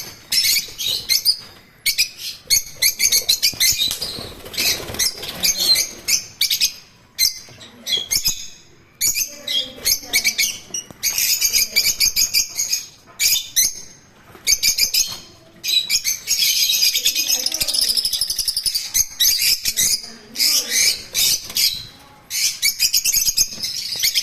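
A flock of African lovebirds chattering with shrill, rapid chirps that come in dense overlapping clusters with short pauses between them.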